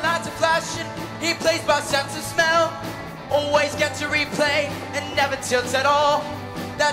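Show choir singing a rock song live, a male lead voice out front over a rock backing with a steady bass line.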